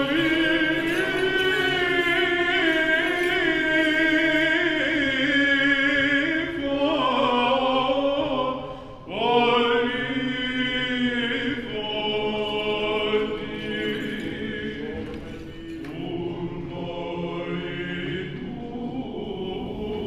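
Male voices singing Greek Orthodox (Byzantine) liturgical chant in long, slowly winding phrases. There is a short break about nine seconds in before a new phrase starts, and the singing is softer in the last few seconds.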